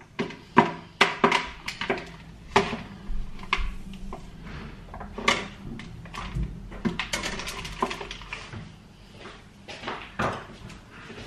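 Irregular knocks and light clatter of a plant pot and kitchen things against a sink as an orchid is pulled from its pot and the soil is worked off its roots, with a denser run of clatter about two thirds of the way through.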